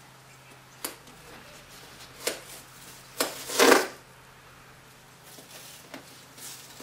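Window tape being pulled off the roll and pressed onto the car around the headlight: a few sharp clicks, then a short ripping noise about three and a half seconds in.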